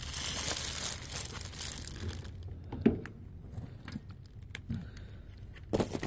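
Rustling and handling noise, with a few light knocks, from hands and clothing working close to the microphone.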